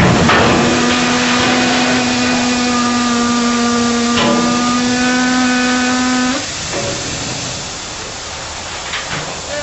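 Compressed air hissing from a side-dump railcar's air dump cylinders as the car body tips, with a steady whistling tone over the hiss that cuts off about six and a half seconds in, leaving a softer hiss.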